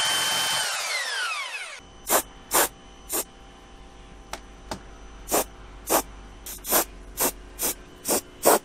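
Cordless drill running, then spinning down with a falling whine as it stops, a couple of seconds after drilling into a van's steel roof rib. It is followed by an aerosol spray can giving about a dozen short bursts over the next six seconds.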